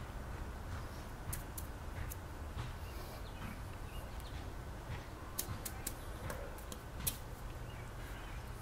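Background noise: a steady low rumble and a faint steady high tone, with a few short sharp clicks, most of them bunched about five to six seconds in.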